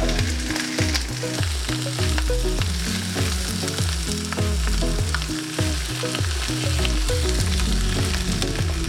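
Chicken pieces sizzling steadily in hot oil in a frying pan, skin side down, with background music underneath.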